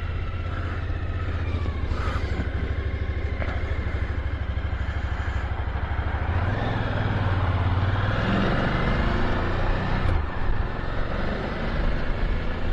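Motorcycle engine at a steady low idle, then pulling away about six seconds in, the revs rising as it accelerates, with wind and road noise on the microphone building with speed.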